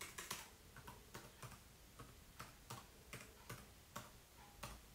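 Typing on a Microsoft Surface Book 2 laptop keyboard: faint, irregular key clicks, about two or three a second, while signing in.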